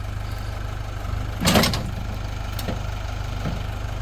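Tractor engine idling steadily, with one sharp metallic clank about a second and a half in and two lighter knocks after it.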